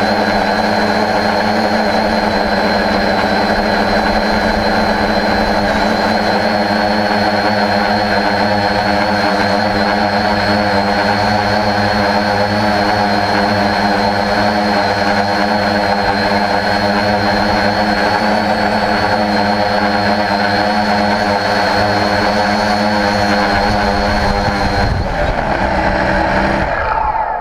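Homemade quadcopter's electric motors and propellers running with a steady multi-tone whine, heard from the camera mounted on the craft. Near the end the pitch falls as it sets down on the snow and the motors spin down.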